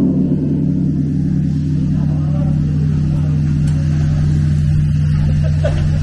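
Large bronze temple bell ringing with a deep, steady hum, sounding on just after being struck with a swinging wooden log.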